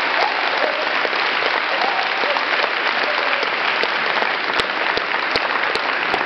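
Audience applauding steadily, with a few faint voices in the first second or so.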